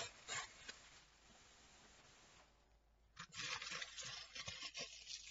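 Soft rustling and crinkling of tissue paper being unwrapped, starting with a light knock. It goes nearly silent for about two seconds, then the rustling picks up again about three seconds in.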